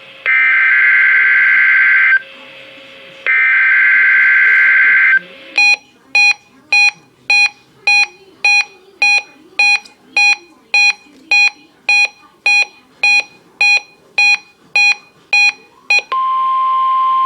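NOAA Weather Radio alert tones on a Reecom R-1630 weather-alert receiver: two SAME digital header bursts, each a harsh data screech about two seconds long, then the receiver's buzzer beeping about twice a second for some ten seconds. About 16 seconds in, the steady 1050 Hz warning alarm tone starts and holds.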